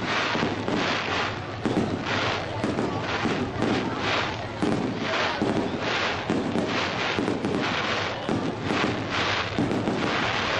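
Aerial fireworks bursting in a dense, unbroken string of bangs, more than one a second, with crackling between them.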